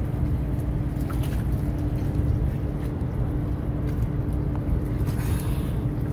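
A steady low motor hum with one constant droning tone, and a brief splashing hiss about five seconds in.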